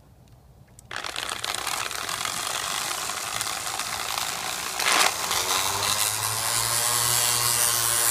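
An electric random orbital sander switched on about a second in and running steadily, with a brief louder surge about five seconds in.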